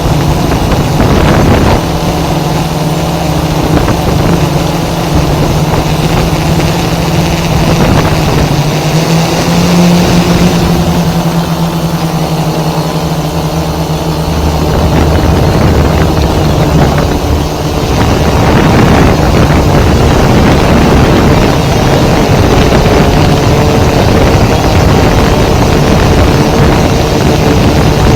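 Electric motors and propellers of an F550 hexacopter drone in flight: a loud, steady buzzing hum whose pitch shifts up and down several times as the throttle changes.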